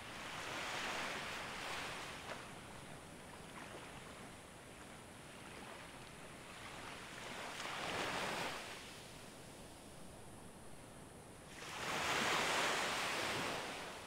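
Small waves breaking and washing up a sandy beach in three surges of surf: one about a second in, one around eight seconds, and the loudest near the end.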